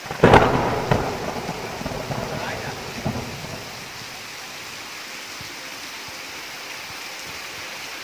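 A sharp thunderclap just after the start, rumbling and crackling for about three seconds, over the steady hiss of heavy rain.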